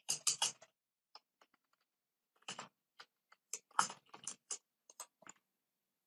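Computer keyboard typing: a quick run of keystrokes at the start, then, after a short pause, a longer run of clicking keystrokes as a terminal command is typed and entered.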